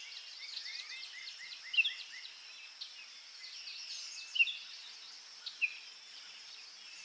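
Several birds chirping and calling in short, falling notes over a steady high-pitched insect drone. A few louder chirps stand out about two, four and a half and five and a half seconds in.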